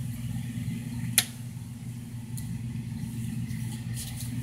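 Steady low hum of running household machinery, with a single sharp click about a second in.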